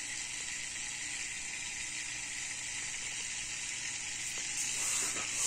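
Hang-on-back aquarium filter running after being plugged in: a steady hiss of water being drawn up and spilling through it, over a faint low motor hum. There is no whine, because the burr on the impeller that rubbed against its housing has been trimmed off.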